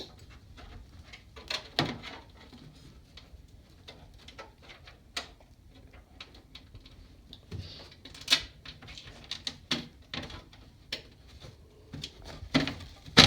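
Irregular clicks and knocks of hand tools and metal fastener hardware being handled while bolting a fender flare onto a car body. The loudest knocks come about two seconds in, around eight seconds, and right at the end.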